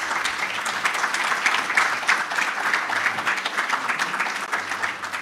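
Audience applauding, many people clapping together, dying away near the end.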